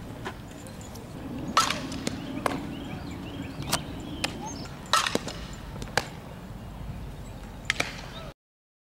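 Series of sharp knocks from softballs being hit and caught during infield fielding drills, about six in all, over an outdoor background; the sound cuts out to silence near the end.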